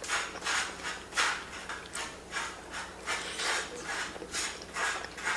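A person chewing macaroni and cheese, in rhythmic chews about twice a second.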